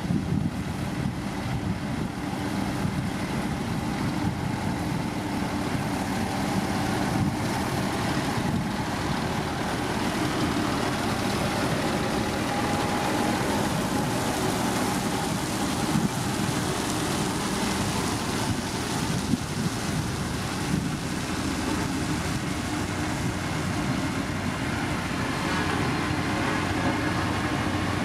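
Diesel engine of heavy road-building machinery running steadily.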